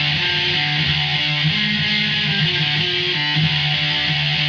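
Electric guitar in drop D tuning playing a riff of barred chords on the bottom three strings, continuous, with the low notes changing about every second.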